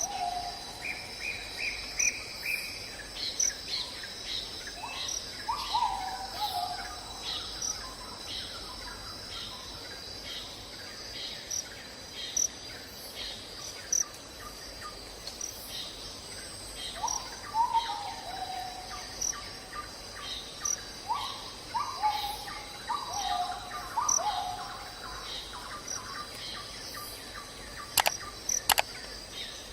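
Birds calling over a steady insect drone. Groups of short falling whistled notes come at the start, around six seconds in, and again from about seventeen to twenty-five seconds, over a run of quick high chirps. Two sharp clicks sound near the end.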